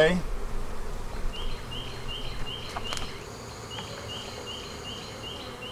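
Honeybees humming steadily around an opened hive. In the background a short high chirp repeats about two to three times a second, in two runs with a brief break.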